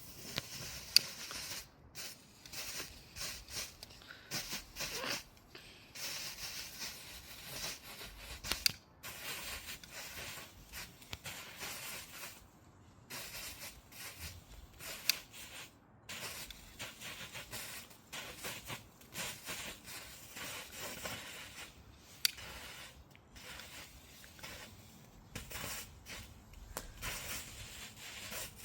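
Small youth-category (F1) firework fountain spraying sparks: an uneven hiss broken by crackles, with a few sharp cracks along the way.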